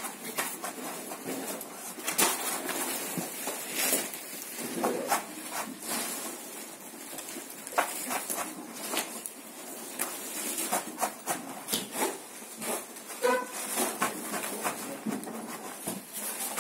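Flowers and foliage being handled and fitted into a floral arrangement: irregular rustling with scattered light clicks and taps.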